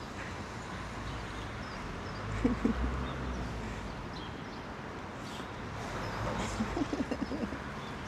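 Outdoor background noise with a low rumble, a couple of short, low animal calls about two and a half seconds in, and a quick run of similar calls near the end.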